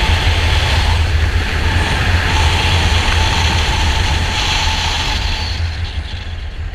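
Wind rushing over a helmet-mounted camera's microphone as a skydiver flies a parachute canopy down to the landing field: a steady, heavy rumble with hiss, easing off a little toward the end as the canopy slows near the ground.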